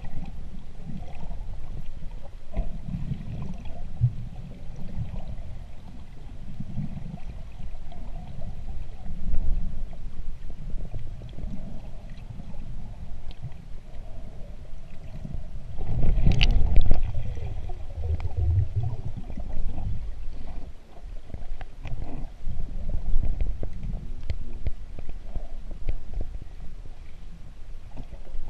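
Underwater sound heard through an action camera's housing while a diver swims: a muffled low rumble of moving water, with faint scattered ticks. About sixteen seconds in it swells into a louder rush that lasts two or three seconds.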